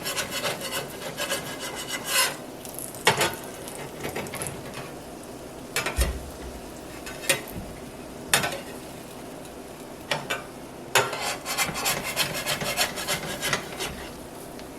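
A spatula scraping and rubbing across the bottom of a skillet, working loose corn-cake batter that has stuck because the skillet was not hot enough. Quick runs of scraping strokes at the start and again about eleven seconds in, with single scrapes and knocks between.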